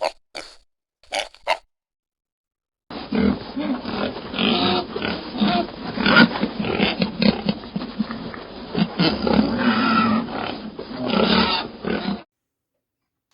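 Recorded pig sounds played by a sound book's pig button, starting about three seconds in, lasting about nine seconds and stopping abruptly. It is preceded by a few brief taps.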